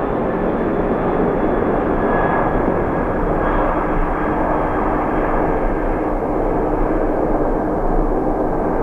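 Boeing 747-400's four jet engines at takeoff thrust through the takeoff roll, rotation and liftoff: a loud, steady rush of jet noise with faint whining tones above it.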